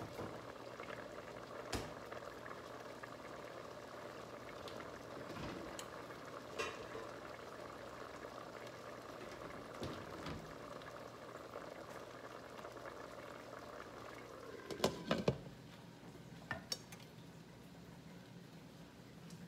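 A large pot of arroz caldo, chicken and sticky-rice soup, boiling with a steady bubbling and scattered small pops. About fifteen seconds in, a glass pot lid clatters on with a few sharp knocks, and the boiling sounds duller under it.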